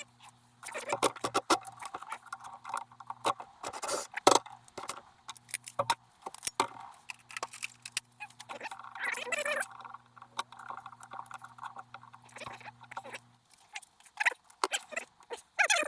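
Hand tools and small metal engine parts clinking and tapping in quick, irregular clicks, over a faint steady hum that stops near the end.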